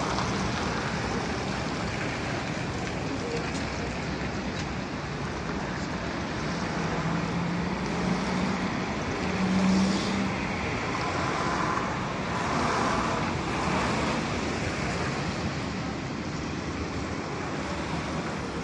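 Street traffic: cars passing at an intersection with steady tyre and engine noise. About seven seconds in, a low hum rises slightly in pitch for a few seconds.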